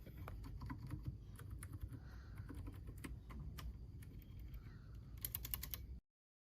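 Typing on a mechanical keyboard with Outemu switches: irregular keystrokes, then a fast run of keystrokes near the end before the sound cuts off abruptly.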